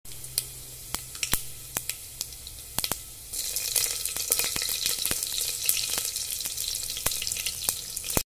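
Whole spices, cumin seeds and cardamom, crackling and sizzling in hot oil in a stainless steel pressure cooker for a tempering, with frequent sharp pops. About three and a half seconds in the sizzle grows louder as green chillies go into the oil.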